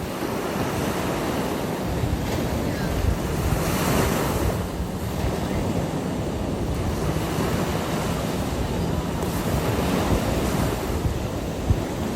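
Ocean waves washing onto a beach: a continuous rush of surf that swells louder about 4 seconds in and again near 10 seconds, with a low rumble of wind buffeting the microphone.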